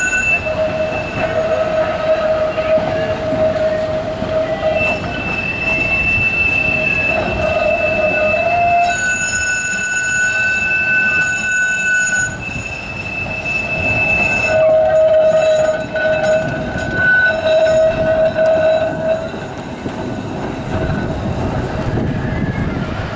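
Blackpool Balloon double-deck tram 701's steel wheels squealing on the curve, in long high-pitched screeches that switch between a lower and a higher note, over the low rumble of the wheels on the rails.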